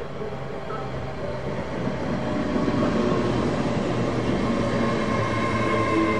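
TransPennine Express Hitachi Class 802 train running past the platform, growing louder about two seconds in as the leading cars draw level, then a steady rumble of wheels on rail with a faint high whine that strengthens near the end.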